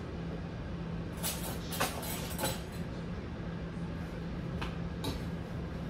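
Kitchen clatter: a handful of short clinks and knocks of cookware and utensils, bunched between about one and two and a half seconds in and twice more near the end, over a steady low hum.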